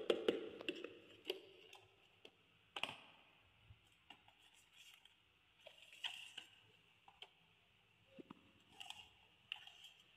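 Hard plastic toy parts being handled and set down: scattered clicks and knocks, the loudest a knock at the very start with a short ring, others spaced a few seconds apart.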